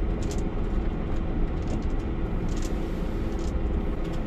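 Camper van's engine running, heard from inside the cab: a steady low rumble with a few brief rattles.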